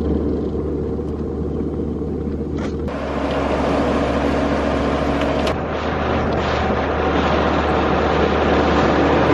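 Heard from inside a moving car in heavy rain: a steady wash of rain and wet-road tyre noise over a low engine hum. The sound changes abruptly about three seconds and five and a half seconds in.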